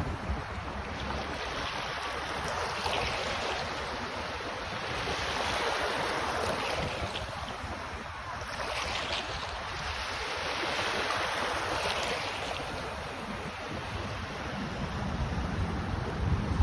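Sea waves washing onto a beach, swelling and falling back every few seconds, with low wind rumble on the microphone.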